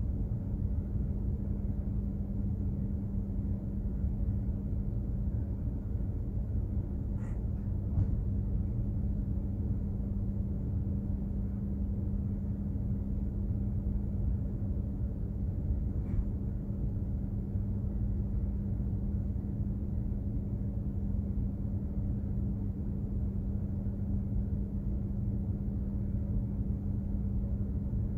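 Steady low rumble of a container ship's engines and machinery heard aboard, with a constant hum underneath. Two faint clicks come about 7 and 16 seconds in.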